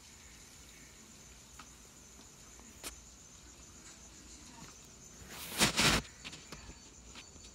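Crickets chirring in a steady high-pitched drone, with a few faint clicks and one loud, short rustling noise about five and a half seconds in.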